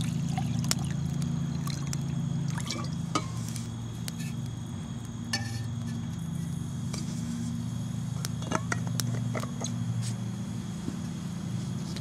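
Water poured from a steel bottle into a 1600 ml Toaks titanium pot, then the pot set onto a folding stainless box stove with a few metal clinks. Scattered crackles from the wood fire burning in the stove, over a steady low hum.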